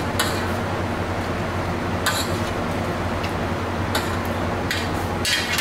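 Cutlery clinking against a plate four or five times during eating, each clink short and sharp, over a steady low background hum.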